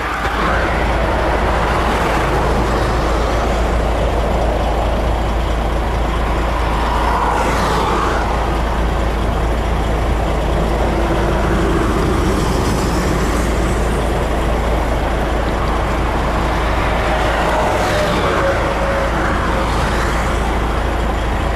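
Steady highway traffic running close by, tyres and engines making a continuous noise, with several vehicles sweeping past one after another, rising and falling in pitch as they pass.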